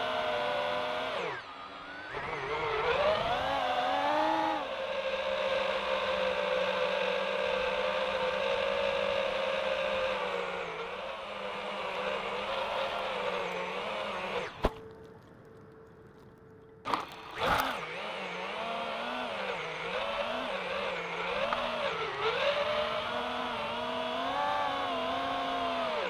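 Electric motors and propellers of an iFlight Titan DC5 five-inch FPV quadcopter, heard from its onboard camera: a buzzing whine whose pitch rises and falls with the throttle. A little past halfway a sharp click comes, the whine nearly drops out for about two seconds, and it comes back after two more clicks.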